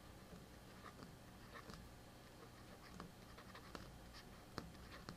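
Faint scratching and tapping of a stylus writing on a tablet, with a handful of soft clicks scattered through, over a low steady room hum.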